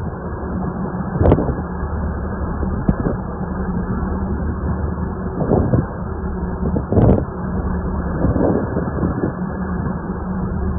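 Steady low engine hum with several sudden loud thumps, the strongest about a second in and about seven seconds in.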